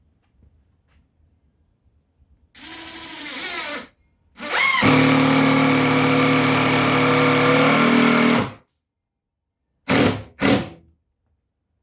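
Power drill driving screws into subfloor: a short run that rises in pitch, a longer steady run of about four seconds, then two quick bursts near the end.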